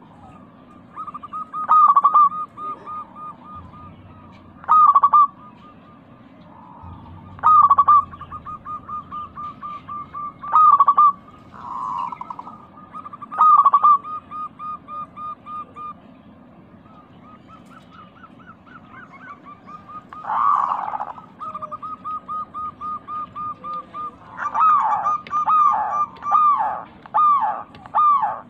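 Zebra dove (perkutut) cooing: loud, clipped coo notes about every three seconds with soft, rapid trilling between them, then a quick run of notes near the end.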